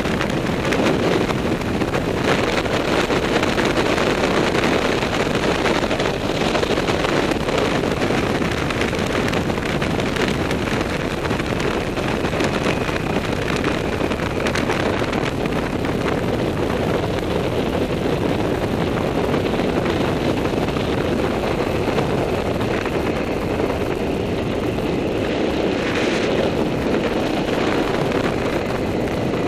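Steady wind rush on the microphone of a camera riding on a moving quad or motorbike, over the vehicle's engine and road noise while cruising.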